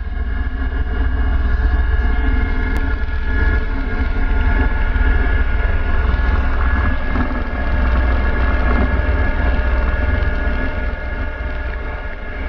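Eurocopter EC120 Colibri helicopter heard from inside the cockpit: a steady turbine whine of several fixed tones over a deep, heavy rotor rumble.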